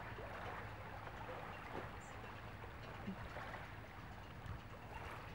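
Small waves lapping gently at the shore, a soft steady wash of water with light splashes.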